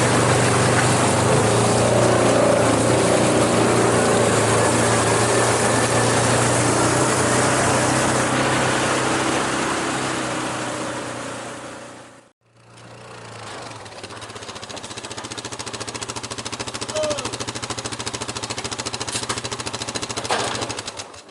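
Off-road vehicle engine running steadily, with a rattly, rapid pulsing. About twelve seconds in the sound fades to nothing. It then comes back quieter and builds up again.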